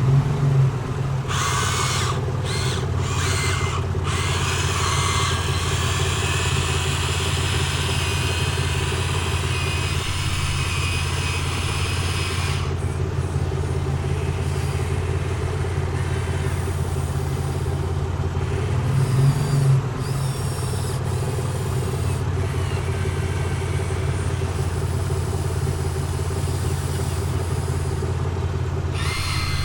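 Excavator running steadily, a low continuous engine hum with brief louder surges about a second in and again about two-thirds of the way through.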